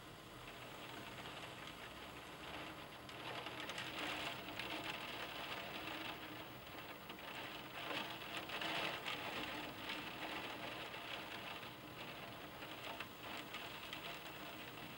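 Tropical-storm rain and wind sound as a steady hiss of wind-driven rain and tossing leaves. It swells in gusts about four seconds in and again around eight to nine seconds.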